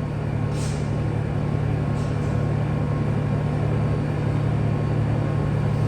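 Vehicle engine running with a steady low hum, with a couple of brief faint ticks near the start.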